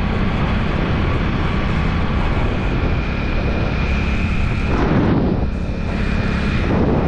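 Motorcycle running at road speed, heard from the pillion seat, with wind rushing over the microphone. The wind noise surges about five seconds in and again near the end.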